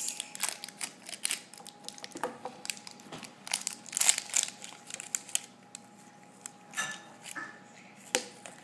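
Thin foil wrapper crinkling and tearing as it is picked and peeled off a surprise egg by hand: irregular crackles on and off, busiest around four seconds in.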